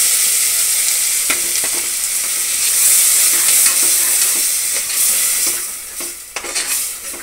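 Wet ground tomato masala sizzling loudly as it hits hot oil and fried onions in a pressure cooker, with a long metal slotted spoon stirring and scraping against the pot. The sizzle dies down about five and a half seconds in as the masala settles.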